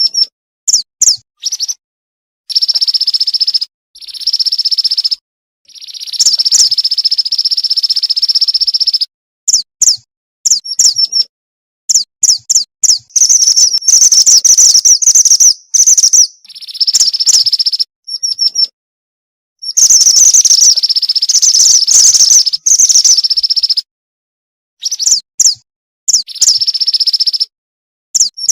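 Female mantenan gunung (mountain mantenan) calling: high, buzzy trills lasting one to several seconds, mixed with quick sharp chirps, in repeated bursts broken by brief gaps of silence. It is the female's call to a male, used as a lure call.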